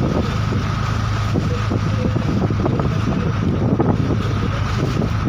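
Steady engine drone with a constant low hum, mixed with wind buffeting the microphone and a few faint clicks.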